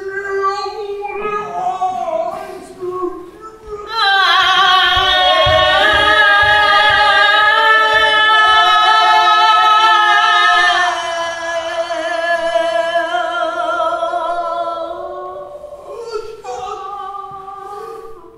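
Improvised singing by women's voices: long held notes with a wavering vibrato over a steady lower note. It swells loud about four seconds in and eases off after about eleven seconds.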